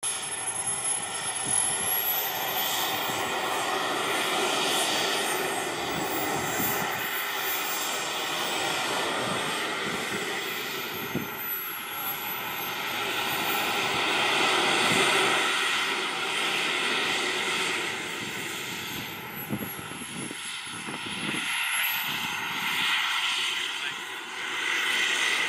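Twin model jet turbines of a large radio-controlled Me 262 running as it taxis: a steady rushing noise with a thin high whine that dips and rises in pitch a few times with the throttle.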